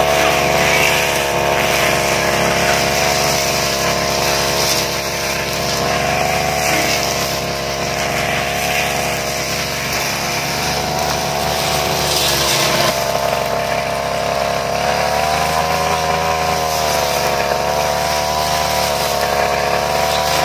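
Engine-driven brush cutter (grass-cutting machine) running steadily while cutting grass, its pitch wavering slightly and rising a little about two-thirds of the way through.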